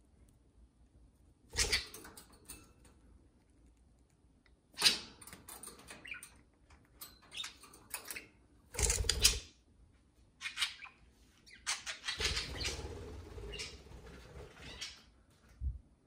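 Budgerigars' wings flapping: several short flurries as the birds take off and fly about, with a longer stretch of flapping near the end.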